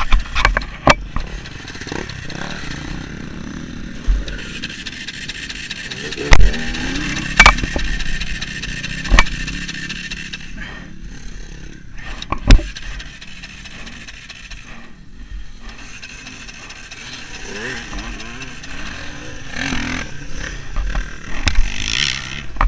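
A dirt bike being handled after going down in deep sand: a series of sharp knocks and scrapes, then the engine running again as the bike moves off near the end.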